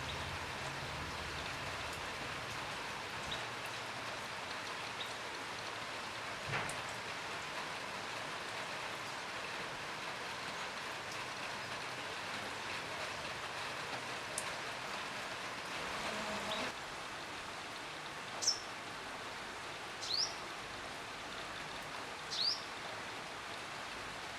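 Steady rain falling, with a few scattered drop hits. Near the end a bird gives short, rising high chirps about every two seconds.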